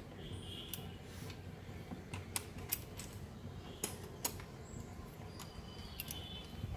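Light metallic clicks and ticks at irregular intervals as a bolt, nut and combination spanner are handled while fastening an exhaust slip-on's hanger bracket to the motorcycle's mount.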